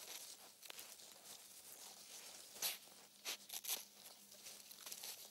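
Honey badger's claws scraping and scooping loose sandy soil: faint, irregular scratchy strokes, with a few louder scrapes about three seconds in.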